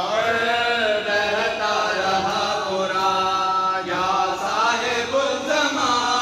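A man's voice chanting a noha, the Shia lament recited during matam, in a slow melody with long held notes.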